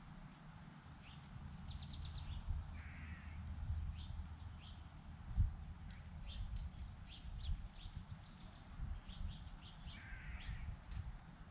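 Wild songbirds chirping with many short, high notes, and two harsh, raspy calls, one about three seconds in and one near the end, over a steady low rumble.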